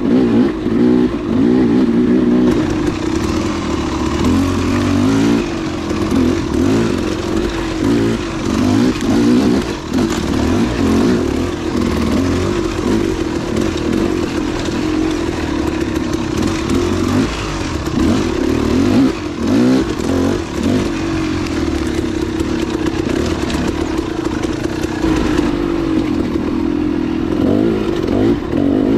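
Dual-sport dirt bike engine running under way, its pitch rising and falling again and again as the throttle is worked on and off, with clattering along the way.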